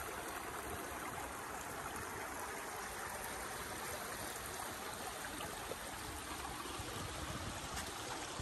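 Small woodland creek steadily trickling and rippling over sand and around a cluster of cypress knees.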